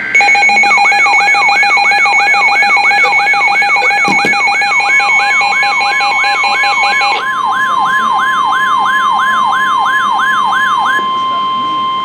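Several weather alert radios sounding their alarms at once for a severe thunderstorm warning: a warbling siren-like alert sweeping up about two and a half times a second, and pulsing beeps that stop about seven seconds in. From about five seconds in comes the steady 1050 Hz NOAA Weather Radio warning tone, which keeps going after the warble stops near the end.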